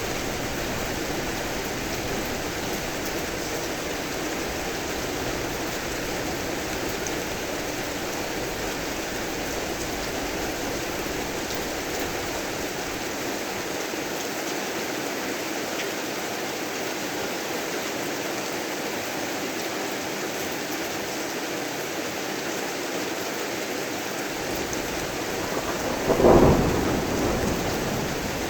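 Steady heavy rain falling, with a single loud rumble of thunder breaking in about two seconds from the end and rolling away.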